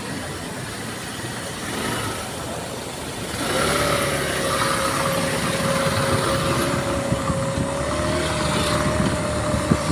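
A motor vehicle's engine running steadily, with one held drone that comes in about three and a half seconds in and carries on to the end.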